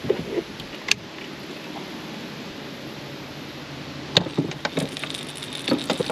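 Fishing tackle handled aboard a kayak: a few knocks and sharp clicks, once near the start, once about a second in, then in clusters about four and six seconds in, over a steady hiss of wind or moving water.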